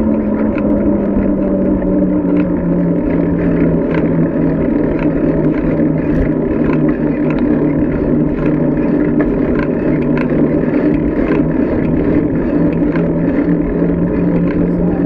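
Steady rushing road and wind noise while riding downhill, with a low hum that drops a little in pitch about two seconds in and scattered light clicks and rattles.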